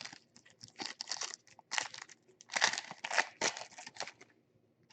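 Plastic crinkling and rustling in irregular bursts as trading cards and their packaging are handled.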